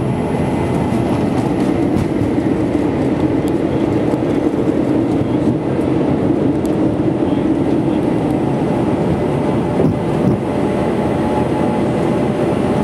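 Cabin noise of a Boeing 717 at takeoff thrust, heard from inside the cabin: the rear-mounted Rolls-Royce BR715 turbofans and rushing air make a loud, steady drone through the takeoff roll, lift-off and early climb.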